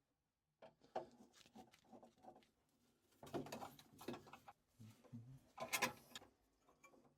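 Scattered light clicks and knocks of boiler parts and tools being handled during reassembly, with a louder cluster of knocks near the end.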